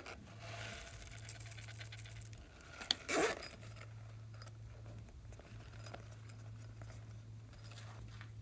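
Silicone pop-it being handled, with rubbing and scraping. The loudest rub comes just after three seconds, right after a sharp click. Small scattered ticks fill the rest.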